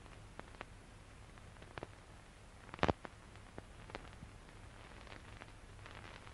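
Faint low hum and hiss with a handful of short scattered clicks; the loudest, a brief crackle, comes about three seconds in.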